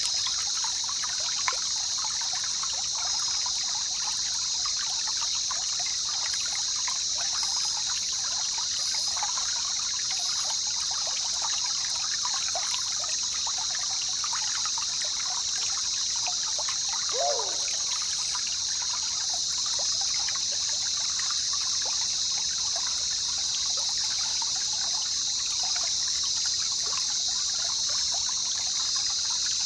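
Jungle river trickling and babbling, under a steady high-pitched drone, with one short falling call a little past halfway.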